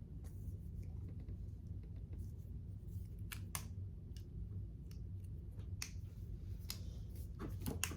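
Small plastic toy pieces being handled and snapped together, giving a few scattered sharp clicks over a low steady hum.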